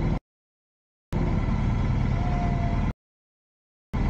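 Motorcycles riding past with engines running, the sound cutting out to dead silence twice for about a second each. A short steady tone is heard about two seconds in.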